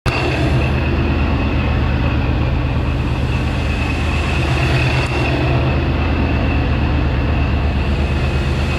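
A vehicle engine running steadily: a low, even rumble with a constant high-pitched whine above it.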